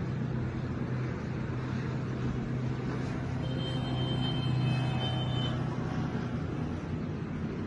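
City traffic heard from high above: a steady hum of engines and road noise, with a faint high-pitched tone held for about two seconds near the middle.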